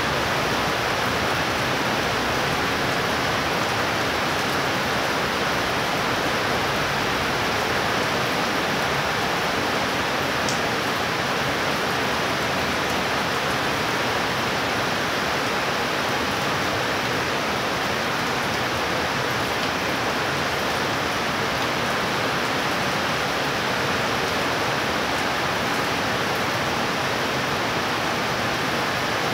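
Heavy rain falling steadily, a dense, even hiss that holds without a break.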